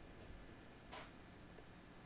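Near silence: room tone, with one faint short tick about a second in.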